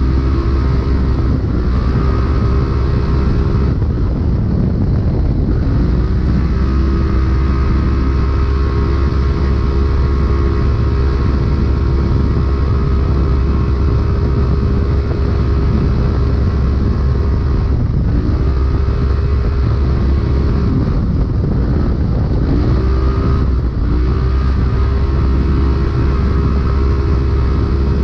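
Polaris RZR UTV engine running hard at a steady pitch, heard from inside the cab, over a heavy low rumble and noise from the chassis and terrain. Several times the engine pitch dips briefly and climbs back.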